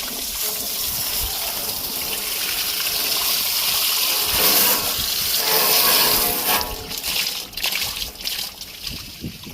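Pressure washer spraying water against house siding: a steady hiss that grows louder about four to six seconds in, then breaks up into uneven spurts near the end.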